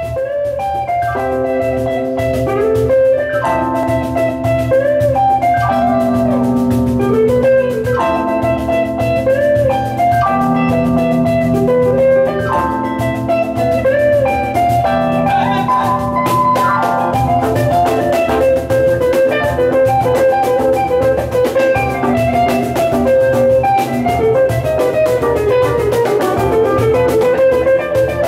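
A small band playing live: an electronic keyboard carries a melody line with small pitch bends over electric guitar and a steady drum beat.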